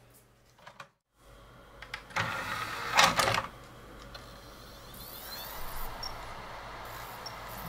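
The optical drive of an uncovered PANNDE PD6 disc player loading a Blu-ray disc. A burst of clicks and clatter comes about two to three seconds in as the disc is drawn in and clamped, followed by a quieter steady whir with a faint rising tone as the disc spins up.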